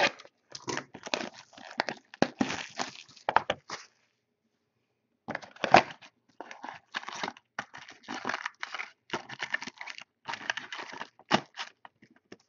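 Plastic shrink-wrap being torn and crinkled off a cardboard hobby box of trading cards, in a run of short rips and rustles with a silent pause of about a second a third of the way in.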